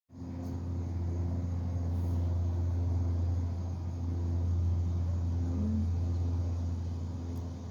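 Steady low mechanical hum with a few fainter, higher steady tones over it, like a motor or engine running.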